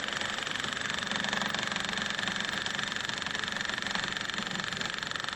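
An engine running steadily at an even speed, with a fast, regular pulsing.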